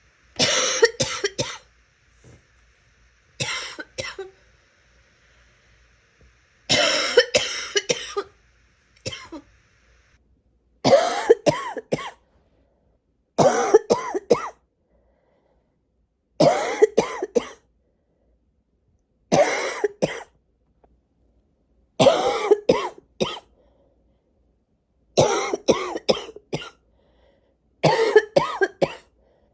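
A sick person coughing in rapid fits, each a quick run of three or four coughs, about ten fits coming every two to three seconds.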